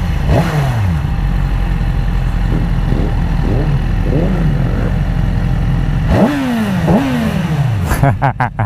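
BMW S1000RR's inline-four engine heard from the rider's seat, running at low speed with wind noise; the revs drop away several times, most strongly about six and seven seconds in as the bike slows. A few short crackles near the end.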